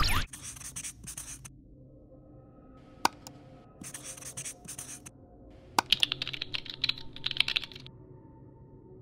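Marker pen scratching across a surface in short strokes, then a quick run of keyboard typing clicks about six seconds in, over faint background music. A brief swish opens it.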